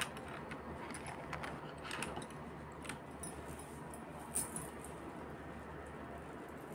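Faint metallic clinks and light clicks of small metal jewellery lockets being handled, scattered through the stretch, the loudest about four and a half seconds in.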